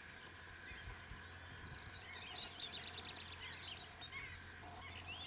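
Faint chorus of birds chirping and singing, many short quick calls overlapping, growing busier about two seconds in.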